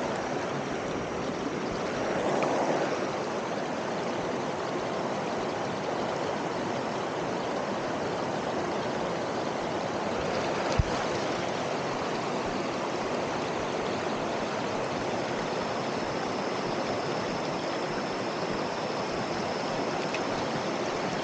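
Waterfall and stream water rushing steadily, with a slight swell a couple of seconds in and one brief click near the middle.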